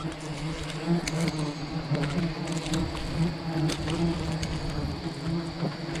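Swarm of honeybees buzzing around a wild hive: a steady drone with a few faint clicks.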